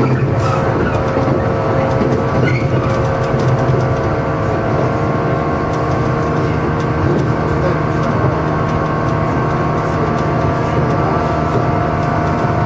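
JR East 115 series electric train running at a steady speed, heard from inside: an even rumble of wheels on rail with a steady hum of several tones and a few faint clicks.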